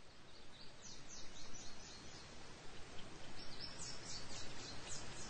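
Steady outdoor rushing noise, growing slowly louder, with two runs of quick, high, downward-sliding bird chirps: the first about half a second in, the second from about three and a half seconds in.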